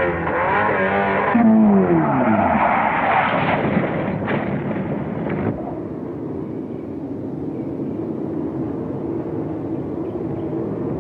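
Open-wheel-style sports racing car's engine dropping sharply in pitch as the car slides off the track into the dirt with a rough, noisy scrabble. About halfway through, the sound changes abruptly to the engine running steadily at low revs with the car stopped.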